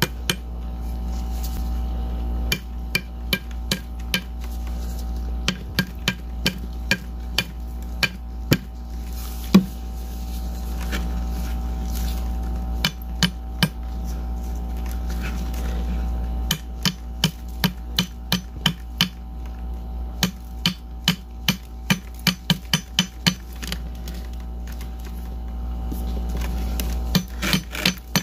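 Sharp taps knocked on a hollow shell of frozen balloon ice, in quick runs of several taps a second with pauses between, over a steady low hum.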